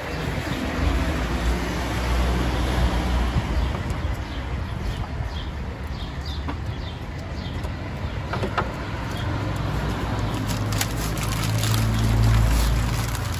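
Street ambience with a motor vehicle's engine rumbling, swelling twice and loudest near the end, over the rustle of wrapping paper being handled and a few sharp knocks from the food cart.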